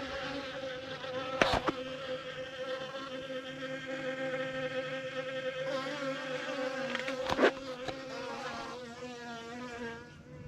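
Bees buzzing close by: a steady, slightly wavering hum, broken by two short sharp knocks, one about a second and a half in and one about seven seconds in.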